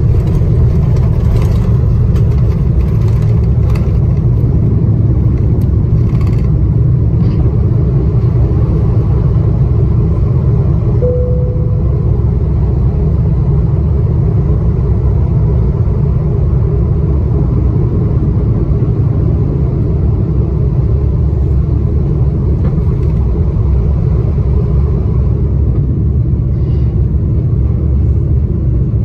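Cabin noise of an Airbus A330-300 at takeoff thrust: a loud, steady engine rumble. Knocks and rattles come in the first several seconds while the wheels are still on the runway, then the rumble runs on smoothly in the climb, with a short tone about eleven seconds in.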